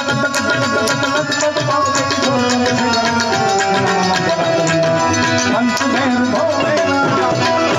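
Indian folk ensemble playing an instrumental passage: tabla drumming a fast rhythm under a sustained melody line.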